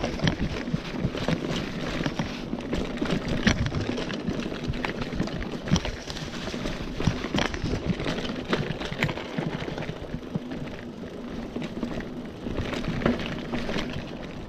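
Giant Talon 3 mountain bike ridden fast down a dirt trail: knobby tyres rolling over dirt in a steady rumble, with frequent sharp clicks and knocks as the bike goes over bumps.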